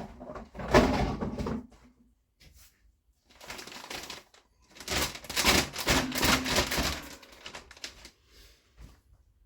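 Plastic mushroom grow bag crinkling and rustling as damp hardwood sawdust and bran mix is put into it, in three irregular bursts, the longest about two seconds near the middle.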